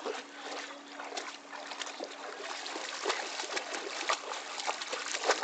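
A golden retriever wading through shallow lake water, its legs splashing and sloshing in small, irregular splashes.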